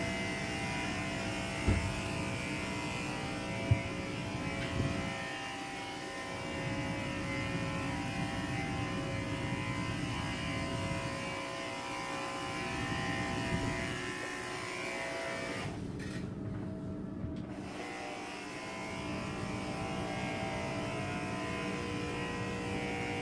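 Victory handheld electrostatic sprayer running with a steady motor whine while misting disinfectant, its higher tones cutting out briefly about two-thirds of the way through; two short knocks early on.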